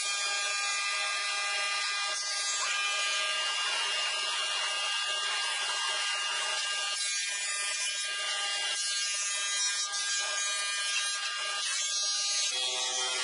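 Industrial thickness planer running with a steady high whine as a board feeds through its cutterhead. The mix of tones shifts near the end.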